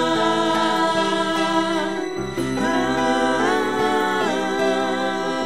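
Closing bars of a gospel song: held, wordless notes in vocal harmony over accompaniment, with a chord change about two seconds in.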